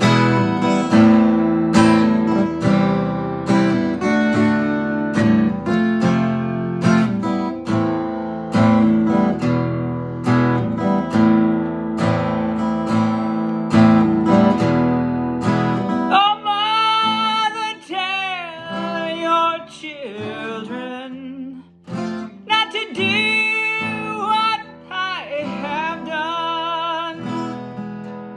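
Steel-string acoustic guitar playing a steady chord pattern. About halfway through, a man's voice comes in over it, singing a wavering melody with vibrato.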